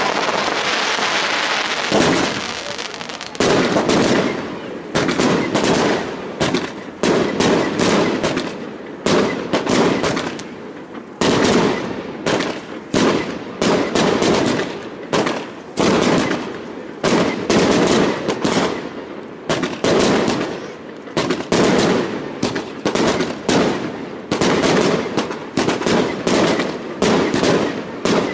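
Aerial fireworks bursting in quick succession: a continuous barrage of sharp bangs and crackles, several a second in clusters about every second. It opens with about two seconds of continuous crackling hiss before the bangs take over.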